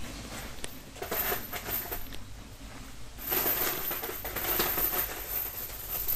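Steel chain rattling and clinking as it is paid out and dragged along the soil, in one stretch about a second in and a longer, louder one from about three seconds in.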